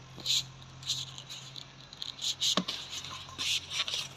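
Long latex modelling balloon being twisted and rubbed by hand: a series of short rubbery squeaks and rubs, with one sharper click about two and a half seconds in.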